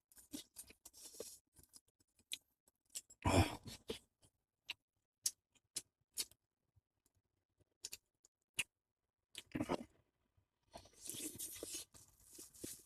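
Close-up eating sounds: scattered small clicks and crunches of chewing on chicken-rack bones and chopsticks, with a louder noisy sound a little after three seconds and a longer noisy stretch near the end.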